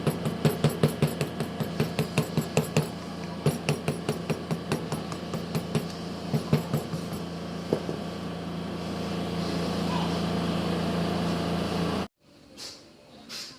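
A motor running steadily with rapid, regular tapping, about four taps a second, that fades out about halfway through; the motor sound then cuts off abruptly near the end.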